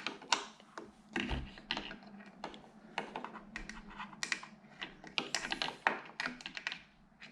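Irregular light clicks and taps of hand tools against the plastic and metal parts of a motorcycle handguard deflector as it is screwed into place.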